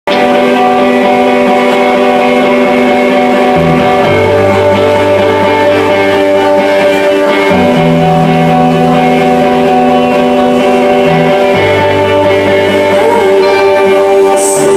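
A live rock band playing: guitars hold long, ringing chords over low notes that change about every four seconds, loud and steady throughout.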